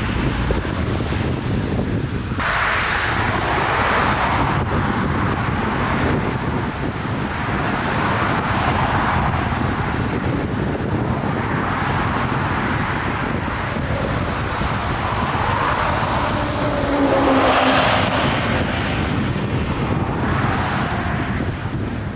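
Strong gusty wind buffeting the microphone, surging in waves every few seconds over a steady low rumble.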